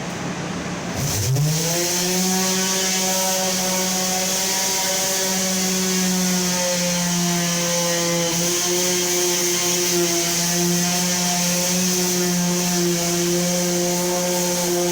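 Electric sander's motor spinning up about a second in, its pitch rising quickly, then running at a steady speed.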